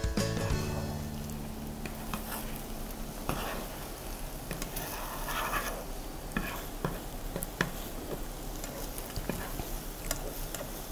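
Soft scrambled egg cooking with a faint sizzle in a nonstick frying pan, as a nylon spatula scrapes and pushes it in from the edges, with scattered light taps of the spatula against the pan.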